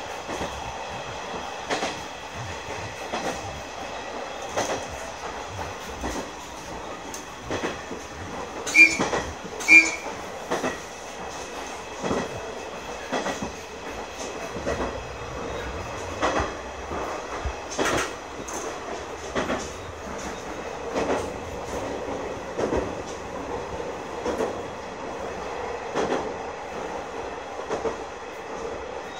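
KiHa 100 diesel railcar running, heard from inside the cab, with its wheels clacking over rail joints about once a second. About a third of the way in, the horn gives two short blasts a second apart.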